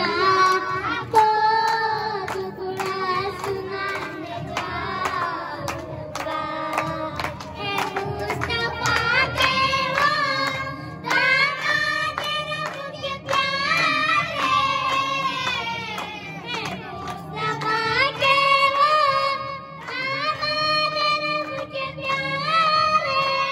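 A group of children and girls singing a song together, with hands clapping along.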